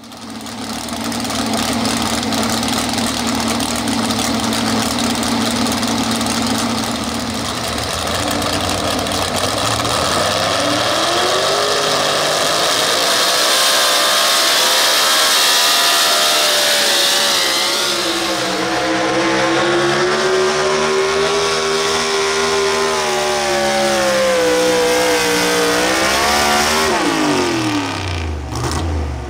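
Naturally aspirated V8 of a 6,200 lb two-wheel-drive pulling truck, with open exhaust stacks, run at a steady rev for several seconds. It then climbs in pitch and runs at full revs under load as it drags the sled, the pitch rising and sagging. Near the end the revs drop away sharply as the pull finishes.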